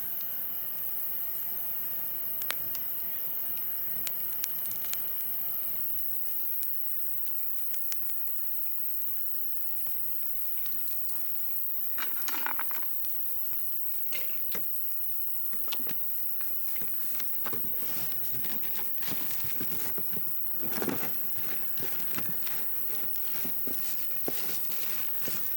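Wood campfire crackling, with irregular sharp pops and snaps. A louder scraping or knocking noise comes about halfway through and another shortly before the end.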